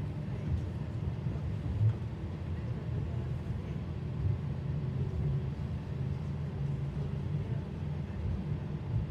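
Steady low rumble of a Sydney Trains V set double-deck electric train heard from inside the carriage, with a couple of brief louder bumps about two and four seconds in.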